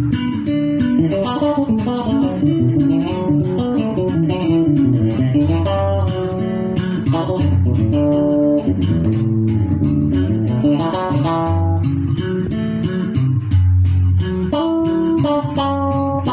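Two electric bass guitars played together with the fingers: quick runs of higher plucked notes over deep low bass notes.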